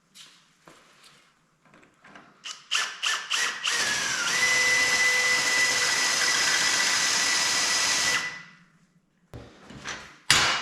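Handheld electric drill: a few short trigger bursts, then a steady run of about four seconds with a high whine, stopping suddenly. A sharp knock near the end.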